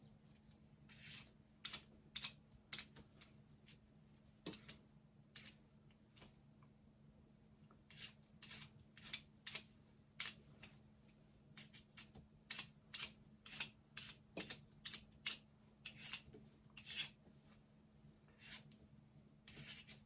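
A blade scraping the skin off a daikon radish in short, repeated peeling strokes, about one or two a second, over a faint steady hum.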